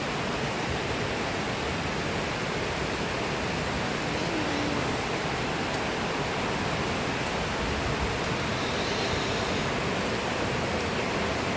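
Steady afternoon rain shower falling, an even hiss that holds at one level throughout.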